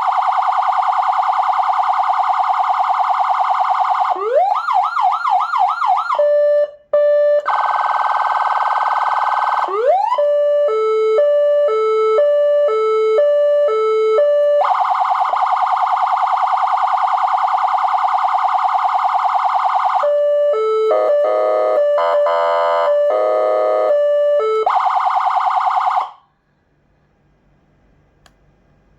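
SA920 200 W electronic siren playing through its speaker and switching between programmed tones. It goes from a fast warble to a few rising whoops, then a two-note hi-lo alternation, another fast warble and a stepped multi-note pattern. It cuts off suddenly about 26 seconds in.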